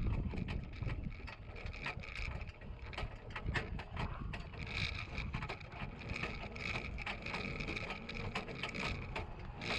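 Metal miniature-pony cart rattling as it is pulled over rough, bumpy ground, a steady stream of irregular clicks and knocks from the frame and wheels.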